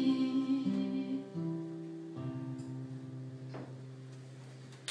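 Acoustic guitar playing the closing chords of a slow song, a few chords struck in turn and left to ring, fading away toward the end.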